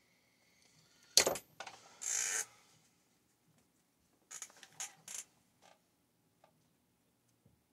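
Small metal engine parts and tools being handled on a workbench: a sharp knock about a second in, a short scraping rub, then a few quick rattles near the middle and faint ticks after.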